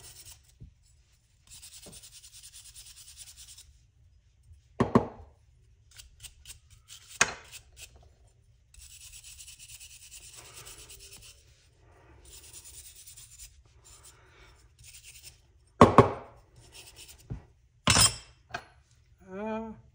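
Small hand wire brush scrubbing rust off a steel tool part in spells of rapid strokes, with four sharp knocks, the loudest two near the end.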